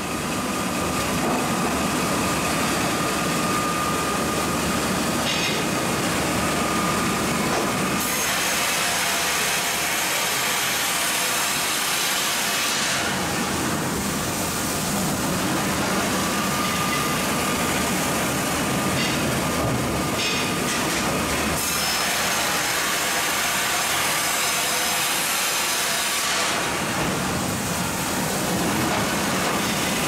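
MEBOR HTZ 1200 Plus horizontal band sawmill running and sawing through a log. Spells of harsher, hissing cutting noise alternate several times with steadier running that carries a thin whine.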